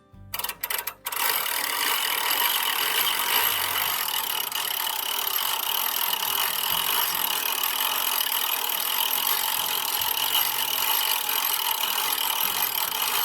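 A machine running steadily: a dense, even hiss with a faint high whine, starting about a second in after a few clicks.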